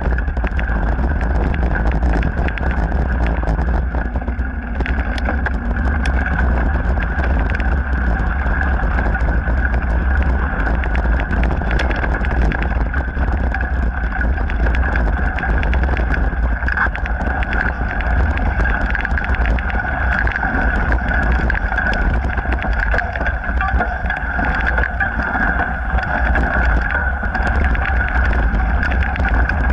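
Mountain bike riding along a dirt-and-gravel trail: a steady low wind rumble on the microphone, with the tyres crunching over the surface and frequent small rattles and clicks from the bike.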